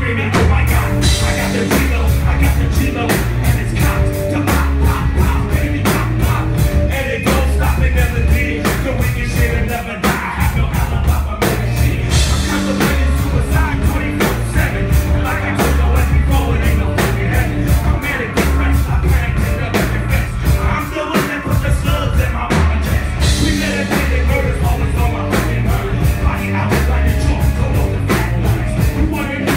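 Loud live rap-rock music through a club PA: a drum kit keeping a steady beat over heavy bass, with a rapper's voice on the microphone over it.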